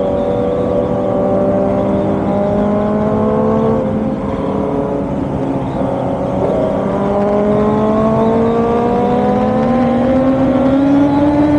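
Motorcycle engines running hard at highway speed, more than one engine tone overlapping and climbing slowly in pitch as they accelerate, over a steady rush of wind noise.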